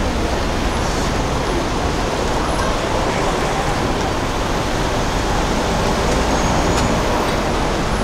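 Steady road traffic noise: the even rumble and hiss of cars passing through a city street.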